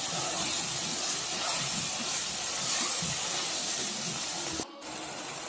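Red ponnanganni (dwarf copperleaf) greens sizzling steadily as they are sautéed in hot oil in a clay pot, with a ladle stirring through them. The sizzle drops suddenly about four and a half seconds in.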